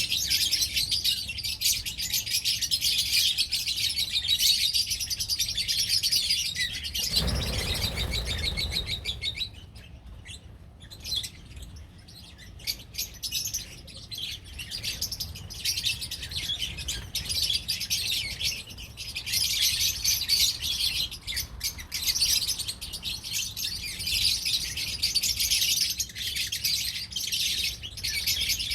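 Many small parrots, lovebirds, chattering with dense, shrill, rapid chirps. The chirping thins out briefly about a third of the way in, and a short low rumble comes just before that.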